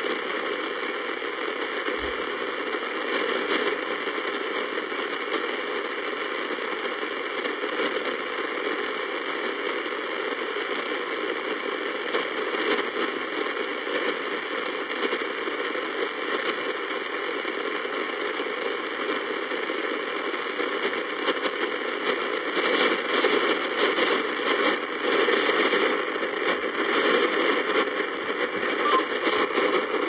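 Vido retro portable radio tuned between stations, its speaker giving out a steady hiss of static. The hiss turns louder and more crackly about two-thirds of the way through.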